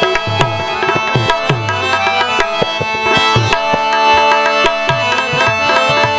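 Instrumental interlude of a Gujarati bhajan: a harmonium holds steady chords while hand drums play a brisk rhythm with gliding bass strokes and small manjira cymbals clash along.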